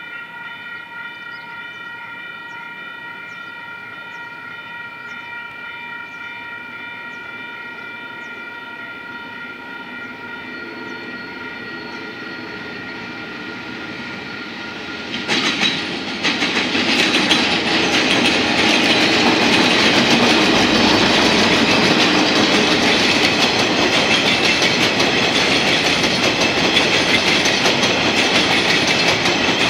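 Diesel-hauled freight train passing. First a steady high tone of several notes sounds while the locomotive approaches. About halfway through there is a sudden jump in loudness as the locomotive comes level, and then the coal wagons roll past with a continuous rumble and clickety-clack of wheels on rail joints.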